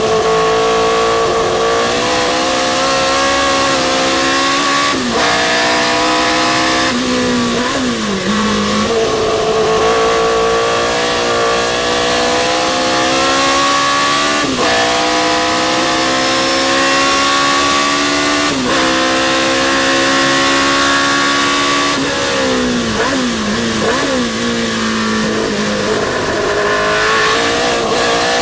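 Historic sports-racing car engine at racing speed, its pitch climbing steadily under full throttle and dropping sharply at each gear change. Twice it falls away and picks up again, as when the car slows for a corner and accelerates out.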